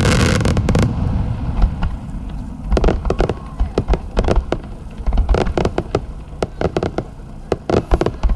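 Aerial fireworks bursting: one loud boom with a rumbling tail right at the start, then from about three seconds in a rapid run of sharp bangs and crackles.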